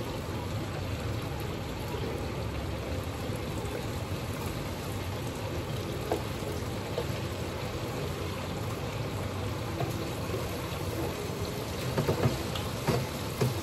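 Steady sizzle of chicken pieces frying in a pan on the stove, with a few light clicks of utensils or cookware near the end.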